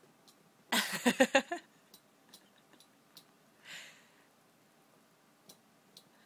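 A short burst of rapid, stuttering voice pulses about a second in, then a soft breathy exhale near four seconds in, with a few faint clicks.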